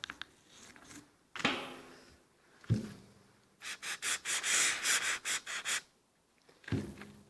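A soft brass brush scrubbing carbon off a throttle body's butterfly in quick strokes, about four a second for two seconds. Before the scrubbing there are a couple of knocks of the part or tool.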